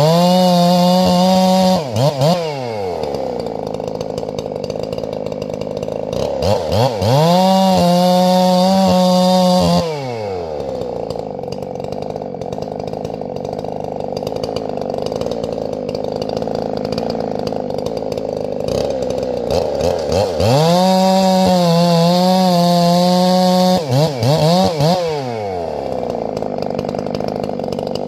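Gas chainsaw brought up to full throttle three times, held high for two to three seconds each time, then dropping back with a couple of quick throttle blips. A second chainsaw runs steadily underneath throughout.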